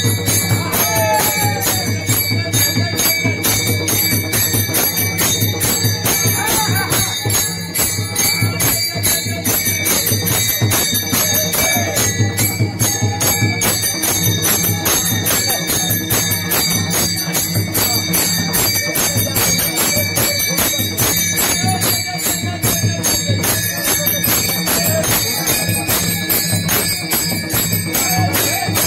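Many small brass taal hand cymbals clashing in a fast, steady rhythm for a Warkari devotional bhajan, with group singing behind them.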